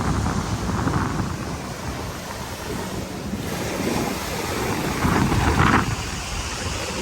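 Small surf washing onto a sandy beach, with wind rumbling on the microphone.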